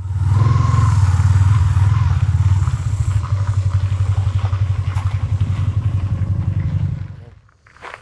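Yamaha Exciter 150 motorcycle's single-cylinder engine running with a steady low pulse, then stopping about seven seconds in.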